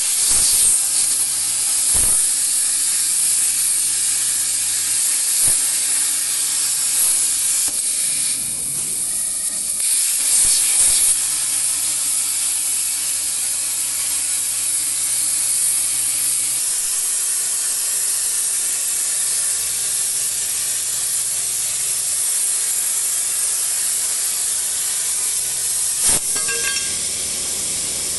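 Plasma cutting torch on a CNC plasma table cutting through metal plate: a loud, steady hiss from the arc and its air jet.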